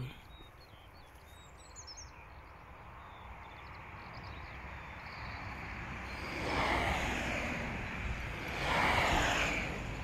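Outdoor field ambience: faint bird chirps about two seconds in, then a rushing noise that builds and swells twice in the second half.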